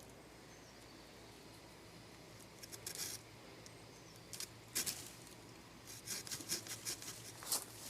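Metal clicks and light rattles of a Leatherman Surge multi-tool and its jigsaw blade being handled and set up, in short irregular groups after a couple of seconds of quiet.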